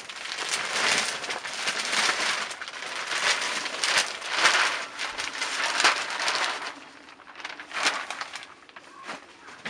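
Multipurpose compost pouring out of a large plastic sack into a fabric planting bag, the sack's plastic rustling as it is tipped. The pour tails off about seven seconds in, leaving quieter, scattered rustling.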